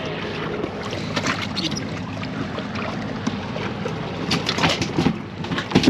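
A boat's outboard motor runs steadily at low revs with a haze of wind and water around it. Over the last second and a half there is a run of knocks and clatters from handling on the boat's deck.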